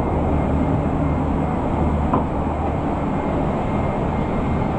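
Steady rush and low rumble of the cabin ventilation aboard a parked Boeing 777-300ER airliner before engine start, with a faint click about two seconds in.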